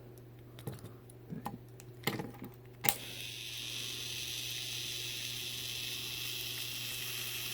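A few light plastic clicks from the toy being handled. About three seconds in, the Plarail Yong Bao's small battery motor switches on and whirs steadily.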